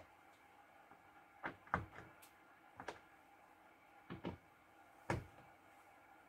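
Faint, irregular clicks and knocks of a long Torx driver working the screws of a plastic engine air filter housing lid, tool and hand tapping the plastic cover as the screws are snugged down. About seven short knocks, some in close pairs.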